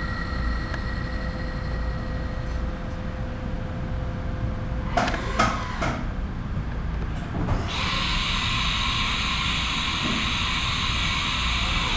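Haas VF-4 CNC mill: the face mill's spindle whines in steady tones over a low machine rumble until about five seconds in. A few clunks follow. A steady air hiss starts about eight seconds in, as the machine goes into a tool change at its carousel tool changer.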